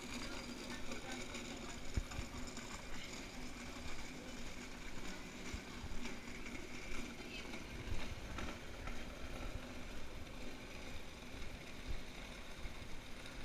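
Airport terminal ambience: a steady hum from the building, a faint murmur of distant voices, and occasional low knocks, the loudest about 2 and 8 seconds in.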